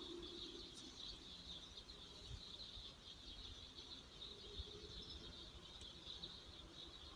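Faint riverside ambience: a steady, high-pitched chirping carries on throughout over a low background hiss.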